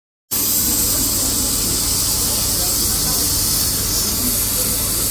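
Sleeper train running, heard from inside the carriage: a loud, steady hiss over a low rumble, cutting in abruptly just after the start.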